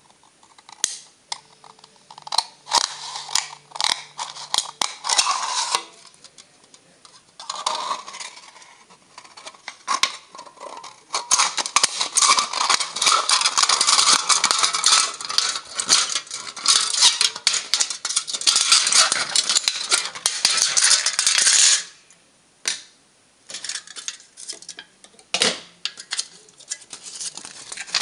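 Scissors cutting through a thin aluminium drink can: a run of sharp snips and crackling of the thin metal, sparse at first, then dense and continuous through the middle before thinning out to scattered clicks near the end.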